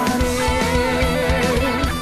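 Hard rock music: an electric guitar lead line wavering and bending in pitch over bass guitar and a steady drum beat.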